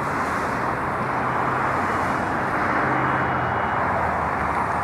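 Road traffic: cars passing on the road, a steady rush of tyres and engines that grows a little louder over the first couple of seconds.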